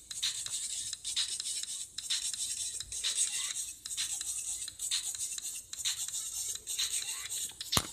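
Teeth being brushed with a toothbrush: rhythmic scrubbing strokes, about two a second, with a sharp click near the end.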